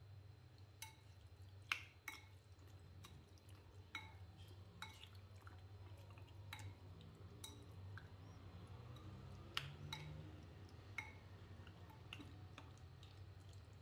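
A plastic spoon tapping and clinking irregularly against a ceramic bowl while raw chicken chunks are stirred into a thick yogurt marinade, faint and scattered, over a low steady hum.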